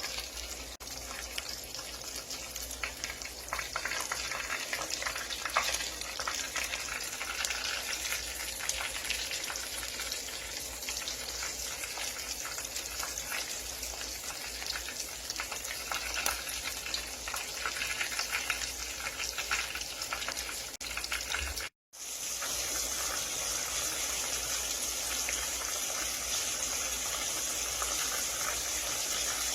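Food frying in hot oil in a pan: a continuous sizzling hiss dotted with fine crackles and pops. It cuts out completely for an instant about three-quarters of the way through, then resumes as a steadier, brighter sizzle.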